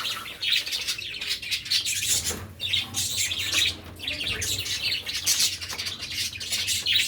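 A group of cockatiels chirping continuously, many calls overlapping.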